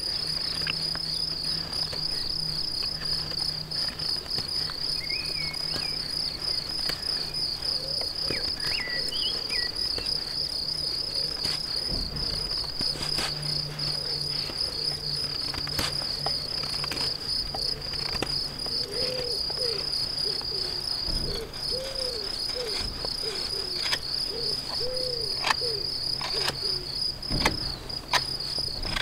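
An insect trilling steadily on one high, fast-pulsing note, with the scattered scraping clicks of a knife blade shaving a small wooden stick.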